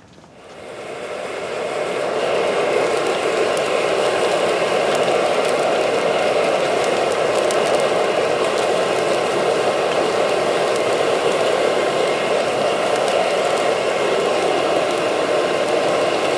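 Homemade foundry furnace running under forced air from its blower: a steady rushing noise that fades in over the first two seconds, then holds even.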